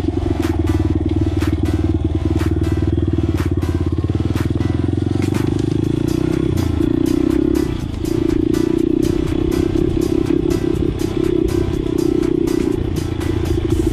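Honda CRF100F's small air-cooled four-stroke single-cylinder engine running under throttle while being ridden over rough ground, with frequent clicks and rattles. The engine note drops briefly about eight seconds in, then picks up again.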